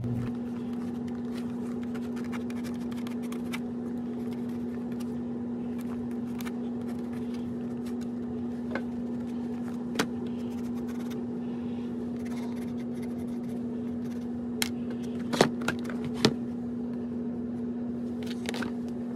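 A steady low hum runs throughout, with a few light scrapes and sharp taps as a sheet of rubber heel top-lift material and the shoe are shifted on the workbench. The loudest taps come in a quick cluster a little past the middle.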